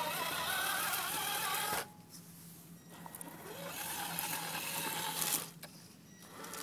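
Electric motor and gears of a radio-controlled scale rock crawler truck whining, the pitch wavering with the throttle as it crawls over dirt and stones. It stops about two seconds in, comes back with a rising whine a second later, and stops briefly again near the end.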